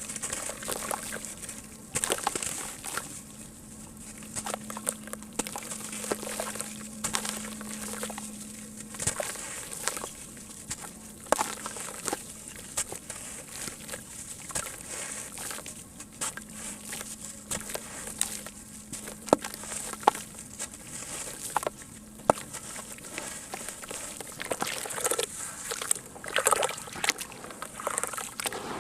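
Sand-cement lumps crumbling and breaking apart in water: irregular crackling and sharp snaps over a constant fizzing hiss, with some sloshing.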